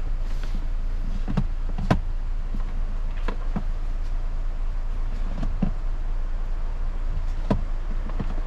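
Car engine idling with a steady low rumble, with a few scattered light clicks and knocks over it, the sharpest about two seconds in.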